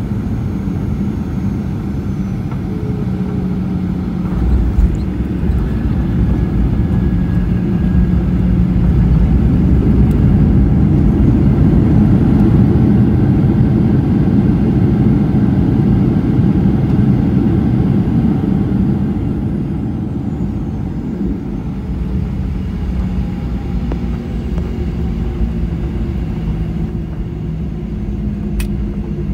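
Boeing 737-800 jet engine and airframe rumble heard from inside the cabin. A thump comes about four and a half seconds in, then the rumble swells for about ten seconds and eases back down.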